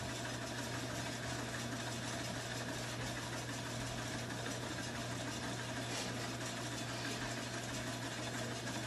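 Steady mechanical drone of a household appliance running: an even hum with a few fixed tones over a hiss, unchanging throughout.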